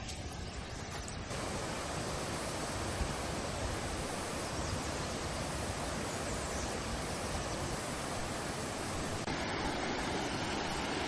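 Steady rush of a waterfall: a dense, even hiss with no rhythm, changing abruptly about a second in and again near the end.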